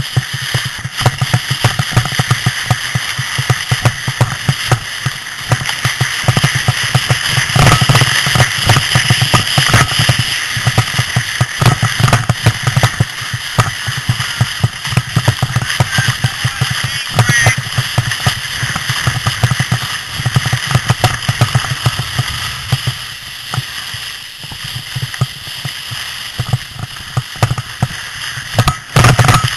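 A sled sliding fast down a bumpy snow run: a continuous rough scraping rumble, broken by rapid knocks and jolts as it rattles over the uneven snow.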